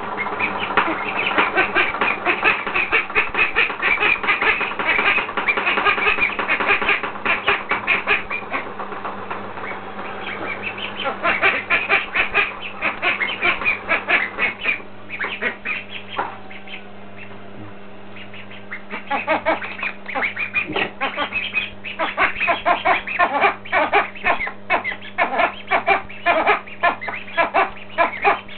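Domestic ducks quacking in rapid, continuous chatter, easing off for a few seconds a little past halfway, then starting up again.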